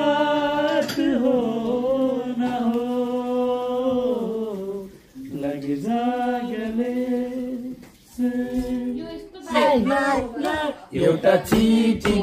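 Men singing a slow, unaccompanied-sounding song, holding long notes with short breaths between phrases. Near the end the singing gives way to livelier voices.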